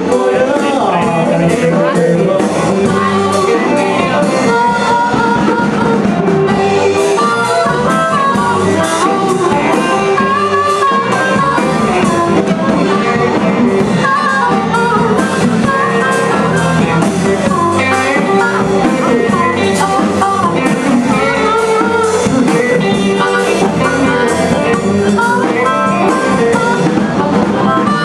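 Live electric blues band playing: electric guitars and a drum kit, with a harmonica played with cupped hands into a microphone.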